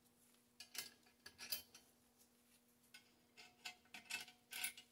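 Small metal clicks and taps as the bolts and steel plates of a grinder kit are handled and fitted by hand. They come in two quick clusters, one about a second in and another in the second half.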